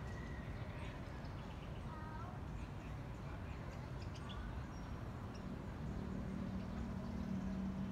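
Outdoor background noise with a few faint, short bird chirps and distant voices. A low steady hum comes in about six seconds in.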